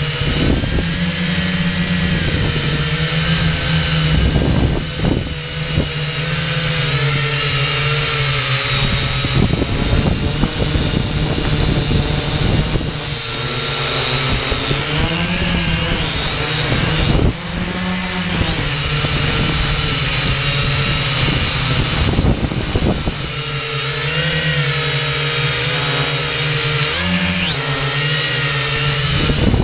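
Xtreem Fly Eye quadcopter's electric motors and propellers whining loudly, close to the onboard camera's microphone. The pitch rises and falls as the throttle changes in flight, most clearly about halfway through and again near the end.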